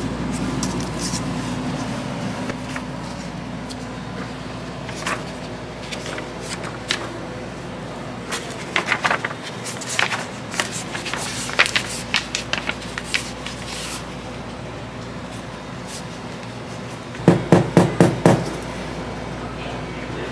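Stiff kraft paper rustling and crinkling in short bursts as a rolled crepe is wrapped in a paper cone, over a steady hum. Near the end comes a quick run of five or six loud knocks.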